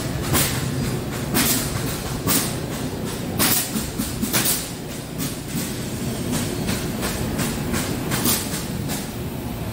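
Factory floor din: a steady low rumble of machinery with irregular sharp bangs, about one a second, from building work in a manufactured-home plant.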